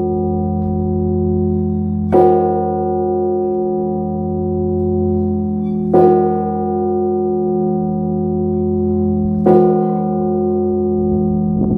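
A large church bell tolling slowly, struck three times about 3.5 to 4 seconds apart, each stroke ringing on into the next over a deep, steady hum.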